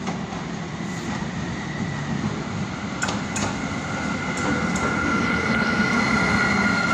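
SU160 diesel locomotive hauling a passenger train into a station and passing close by, its engine running and growing louder as it draws level. A few sharp clicks of wheels over rail joints come from about three seconds in, under a steady high squeal from the brakes as the train slows to stop.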